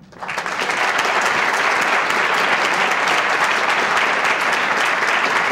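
An audience breaks into applause, many hands clapping together. It builds up within about a second and then continues steadily.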